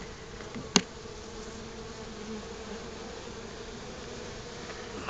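Honeybees buzzing steadily around a hive entrance, with a single sharp click about three-quarters of a second in.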